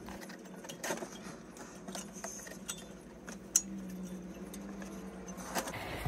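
Light metallic clicks and small rattles of thin steel brake pad hardware clips being pressed and snapped onto a disc-brake caliper bracket, with a sharper click about a second in and another about three and a half seconds in.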